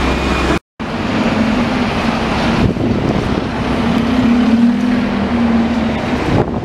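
Diesel buses passing close at the kerbside: a double-decker moving off and a single-deck bus drawing up, its engine humming and wavering in pitch as it nears, over general street traffic noise.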